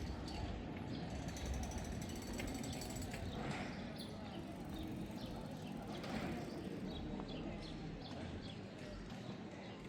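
Town street ambience: a steady background hum of the street with scattered short bird chirps, and a fine rapid ticking for a couple of seconds near the start.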